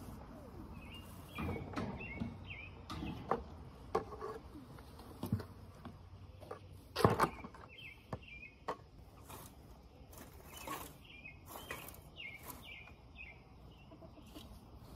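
Birds chirping in short runs of quick falling notes, with irregular knocks and rustling around them; the loudest is a sharp knock about seven seconds in.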